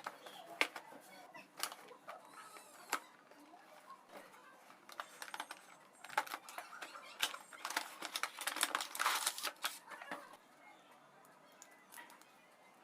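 Hands handling a boxed toy train set: irregular plastic clicks, taps and rustling, busiest from about six to ten seconds in.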